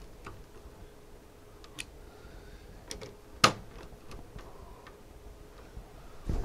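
Scattered light clicks and ticks of small metal parts and screws being handled on an open oscilloscope chassis during reassembly, with one sharper click about three and a half seconds in.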